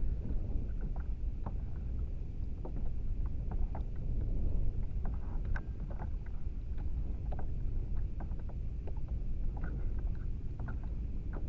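Water lapping against a kayak's hull under a steady low rumble, with scattered small ticks.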